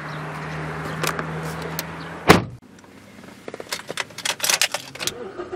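A Mazda 6 front passenger door shut with one loud thump about two seconds in, cutting off a steady low hum from outside; then a run of light clicks and knocks inside the closed cabin.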